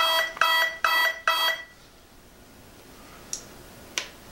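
Electric speed controller of an E-flite Prometheus P2 sounding its power-up beeps through the brushless motor as the flight battery is connected: short, evenly spaced beeps, about two a second, stopping about a second and a half in. Two faint clicks follow near the end.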